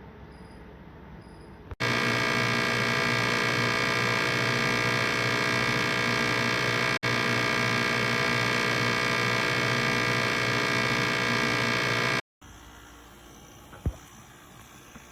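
Window air conditioner running with a steady, buzzy motor hum. The hum starts abruptly about two seconds in, drops out for an instant midway, and stops abruptly near the end.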